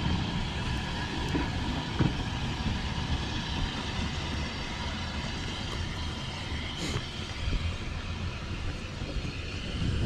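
The narrow-gauge steam locomotive Palmerston running away down the line, a steady rumble that grows slightly quieter as it recedes, with a few faint clicks.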